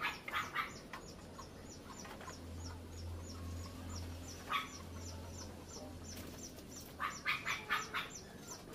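Fowl calling in quick bursts of short calls near the start and again toward the end, with a faint low hum in the middle.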